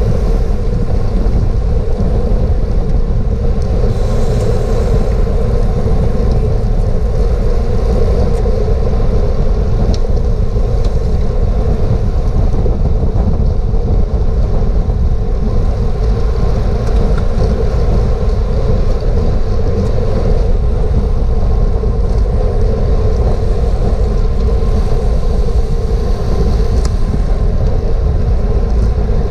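Steady wind rush on a bicycle-mounted GoPro's microphone while riding at race speed, with tyre and road noise underneath.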